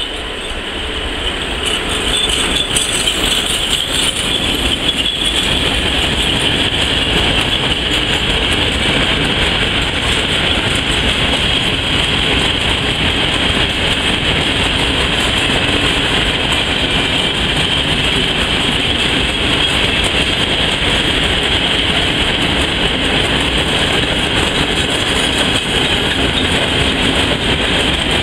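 Freight train of tank wagons hauled by an electric locomotive, passing close by. The sound swells over the first couple of seconds as the locomotive goes past, then holds as a steady rumble and clatter of the wagons' wheels rolling on the rails.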